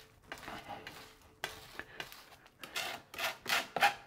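Garlic being ground into a paste with salt: a series of short scraping, grinding strokes, louder near the end.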